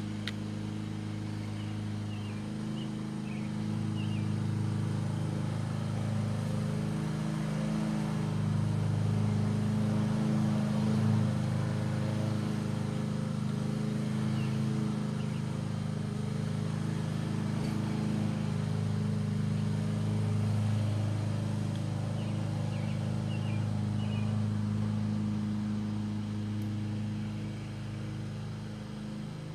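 Steady low motor hum with several even overtones that swells a little in level, with a few faint high chirps now and then.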